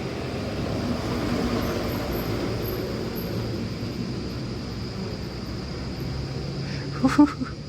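Road traffic: a steady low engine hum and road noise from passing vehicles, with a short cluster of sharp sounds about seven seconds in.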